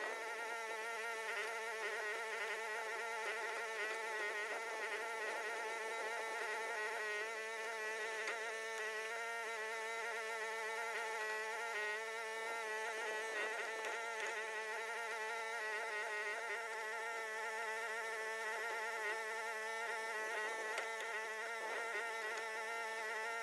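Steady, even buzzing drone of a small engine, a stack of evenly spaced tones that waver slightly in pitch.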